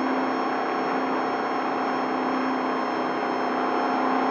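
Desert race truck's engine running steadily at speed: a constant, unchanging drone heard from inside the cab.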